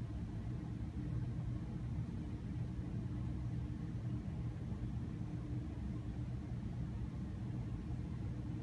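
Steady low mechanical hum with a few held low tones, unchanging throughout.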